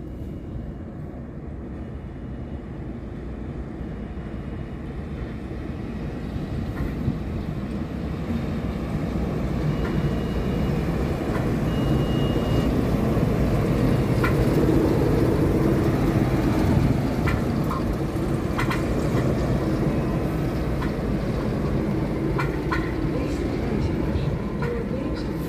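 Orange diesel shunting locomotive running as it hauls a track-measuring car up to and past, its engine rumble growing louder to a peak about two-thirds of the way through. A few sharp clicks come in the second half.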